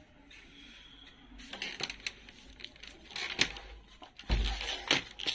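Irregular sharp clicks and knocks with some rustling, starting about a second and a half in, and a low thump about four seconds in.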